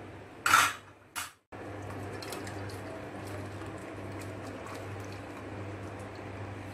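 Jaggery syrup poured from a steel pan through a wire-mesh strainer into a steel pot: a steady trickle of liquid over a faint low hum. A short rushing noise and a click come in the first second and a half.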